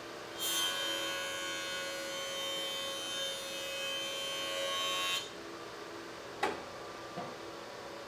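Cherry board fed across a running jointer's cutterhead, a dense cutting noise for about five seconds that stops abruptly as the pass ends, over the jointer's steady hum. A single sharp knock follows, then a fainter one.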